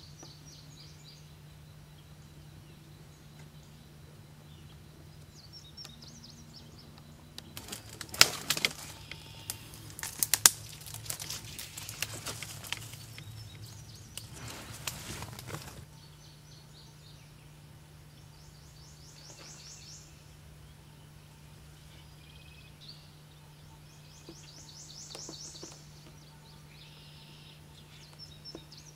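A bird's short buzzy trill repeats every few seconds over a faint steady low hum. In the middle comes a stretch of about eight seconds of loud rustling with sharp crackling clicks.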